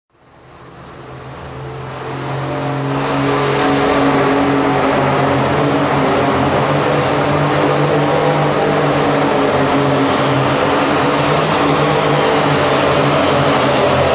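White hot farm pulling tractor's turbocharged diesel engine running flat out under load as it drags the sled. The sound swells up from nothing over the first few seconds, with a high whistle rising in pitch, then holds loud and steady.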